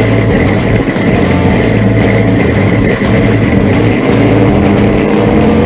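Loud, continuous intro soundtrack with an engine-like drone and music, its pitches shifting in steps.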